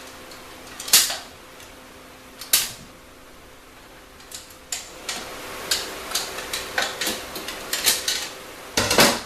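Metal clicks and clanks of a tool working the tapered center-support snap ring out of a 4L80E transmission case: two sharp clacks in the first few seconds, then a run of lighter clicks, ending with a loud clank.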